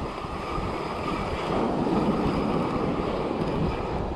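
Surf washing on a beach, with wind buffeting the microphone as a steady low rush.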